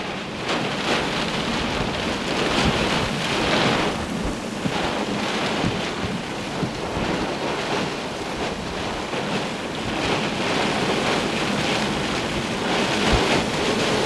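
Severe wind gusts at the leading edge of a squall line battering the microphone, a dense rushing noise that jumps up right at the start and then surges and eases, with wind-driven rain.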